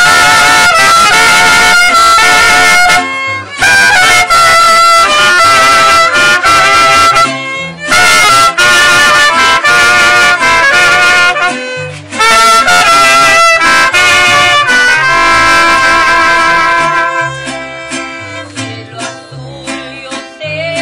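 Mariachi band playing: two trumpets carry a loud melody in four phrases over violin and strummed guitars. About three-quarters of the way through the trumpets stop and the strings and guitars carry on more quietly.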